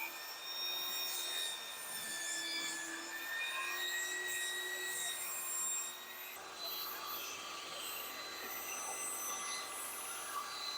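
Table saw running and ripping wooden strips about an inch wide, a steady whine with tones that drift slightly in pitch. The sound changes abruptly about six seconds in.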